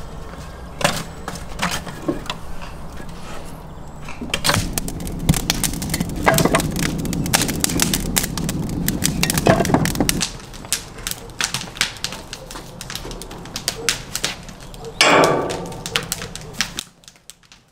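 Fired clay bricks being stacked, clinking and knocking against one another in a long, uneven series of sharp clacks, with a brief louder sound near the end.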